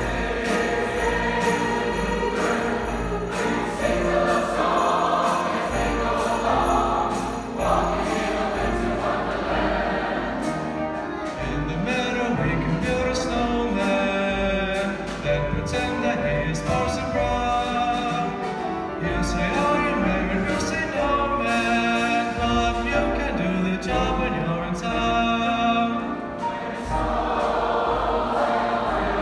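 A large choir singing with grand piano accompaniment, heard from the audience seats of an auditorium.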